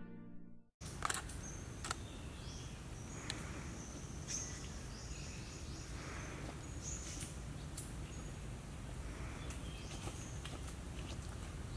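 Tropical forest ambience: a steady low background hiss with short, high bird chirps and whistles scattered through it and a few faint sharp clicks, starting about a second in after a brief silence.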